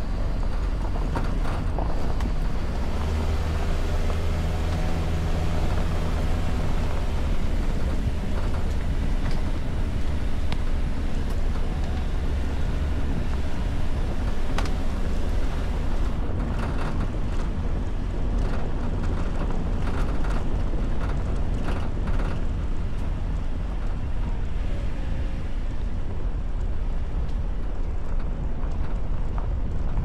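Toyota Veloz's 1.5-litre four-cylinder engine pulling a loaded car up a rough dirt track, with a steady low rumble, wind buffeting the microphone, and scattered knocks and rattles from the bumpy ground. The engine note stands out most between about three and eight seconds in.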